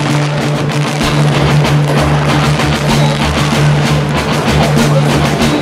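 Loud music with drums.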